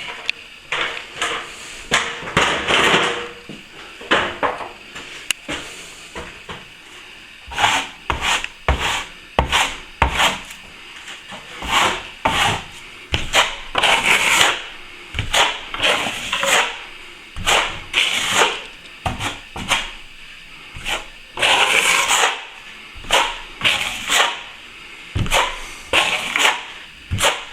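Plaster being floated by hand: a flat plastering tool drawn in repeated scraping strokes over setting plaster, about one or two strokes a second with short pauses, a few longer, louder strokes mid-way.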